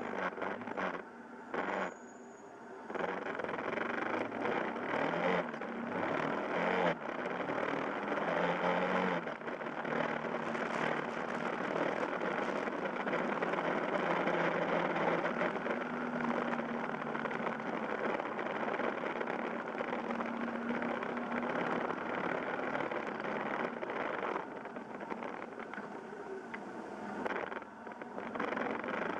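Yamaha Fazer YS250's single-cylinder engine running as the motorcycle rides along, mixed with a steady rush of wind and road noise. The sound is choppy in the first few seconds and steadies into a constant engine tone through the middle. It drops back for a few seconds near the end.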